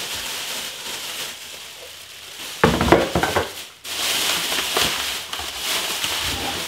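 Thin plastic grocery bags rustling and crinkling as items are pulled out of them, with a short burst of louder knocks and thuds about three seconds in.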